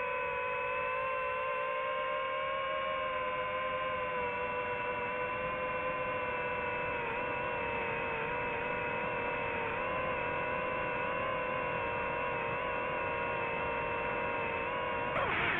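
DJI FPV drone's propellers and motors whining at a steady pitch in slow flight. Near the end the pitch swoops and the sound gets louder as the drone speeds up.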